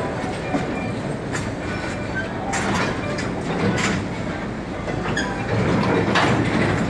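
Freight train of container-loaded flatcars rolling past on the rails while being manoeuvred, wheels clattering over the track with a few sharp metallic clanks.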